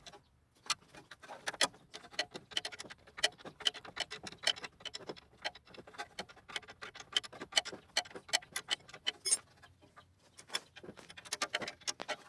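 Rapid, irregular metallic clicking of a wrench being worked back and forth on a rear brake caliper bolt of an Audi A6 C7 as the bolt is undone.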